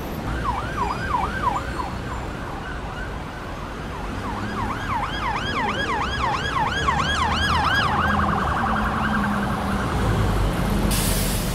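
An electronic emergency siren yelping, a quick dip-and-rise repeated about four times a second, briefly near the start and again for several seconds in the middle, then switching to a faster warble for a second or two, over a low road rumble.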